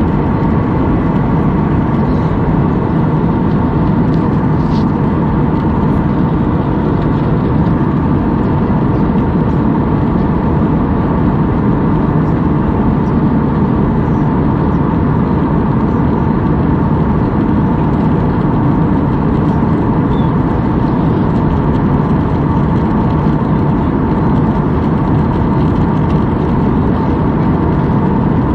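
Jet airliner cabin noise at a window seat in descent: a steady low rush of engines and airflow, with a faint steady whine riding on it.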